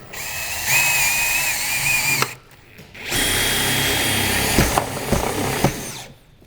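Power drill driving screws to fasten a metal roofing valley cleat, in two steady whirring runs separated by a short pause.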